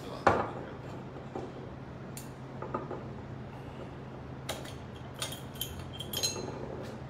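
A steel saucepan set down on a gas hob's grate with one sharp clank, then scattered small clicks and clinks of kitchenware as a bottle cap is twisted open.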